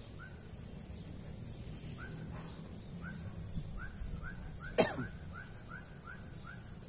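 Outdoor pond-side ambience: a steady high-pitched insect drone with a bird calling in a run of short rising notes, about two a second, in the second half. A single sharp click sounds near five seconds in.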